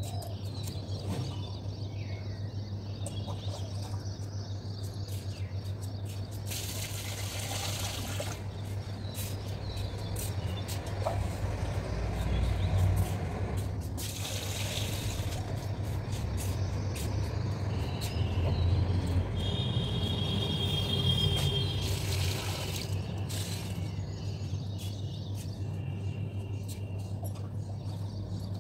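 Water being drawn into a small mug and poured out, heard as three short spells of running, splashing water over a steady low hum.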